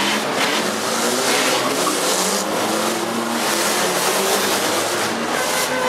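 Six- and four-cylinder demolition derby cars' engines running and revving up and down together over a steady wash of noise.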